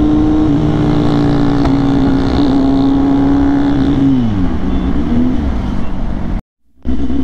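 Kawasaki Z800's inline-four engine running steadily at speed, its revs then falling, with a downward glide in pitch about four seconds in. The sound cuts out for about half a second near the end.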